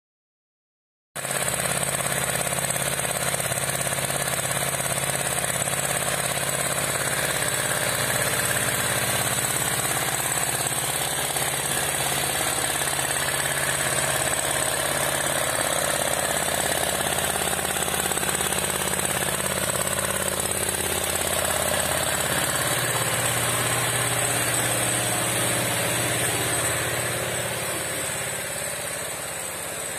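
Milking machine's vacuum pump unit running with a steady mechanical drone, starting about a second in and easing a little near the end.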